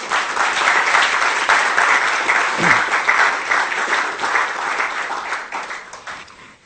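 Audience applauding after a lecture, a dense patter of many hands clapping that fades out over the last second or two.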